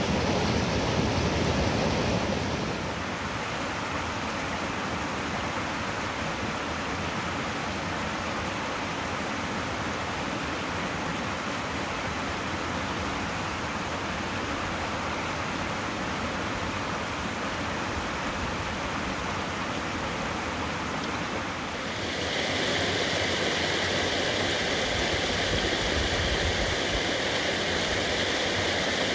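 Creek water rushing over rocks in a steady wash. It is a loud cascade between boulders at first, a softer, even flow over riffles from about three seconds in, and then louder again from about twenty-two seconds in as a small waterfall pours over a rock ledge.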